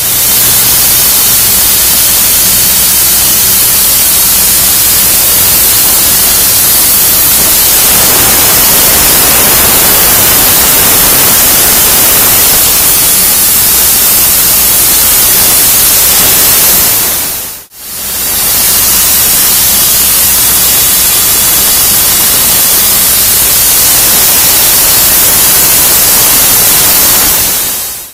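Plasma cutting torch on a CNC plasma table cutting 5/8-inch steel plate: a loud, steady hiss that briefly drops out once, about two-thirds of the way through.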